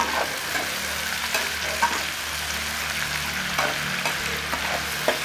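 Chopped onions sizzling steadily in hot ghee in a metal frying pan, with a metal spatula scraping and clicking against the pan several times as they are stirred. The onions are at the stage of being lightly browned.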